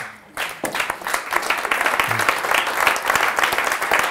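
Audience applauding: many hands clapping, starting about half a second in and quickly building to steady applause.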